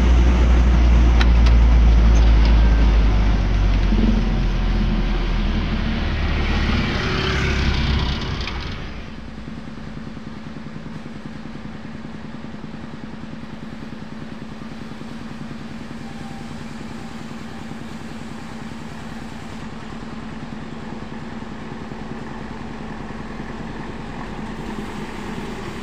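Mitsubishi L300 pickup's diesel engine running under way, heard loud from inside the cab. After about eight seconds it drops abruptly to a quieter, steady engine hum heard from outside as the pickup rolls in.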